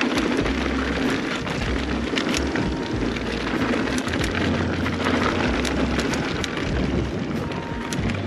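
Mountain bike riding fast over a loose dirt trail: wind buffeting the chest-mounted camera's microphone, tyres crunching over loose dirt and gravel, and the bike rattling over bumps with scattered sharp clicks.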